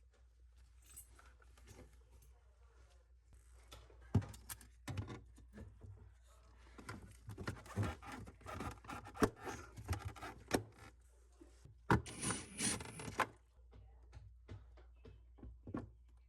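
Hands working on refrigerator parts: scattered knocks, clicks, scrapes and rubbing, busiest in the second half, with a short hiss about twelve seconds in.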